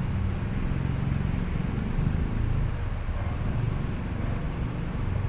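Steady low rumble with no distinct knocks or tones, holding a fairly even level throughout.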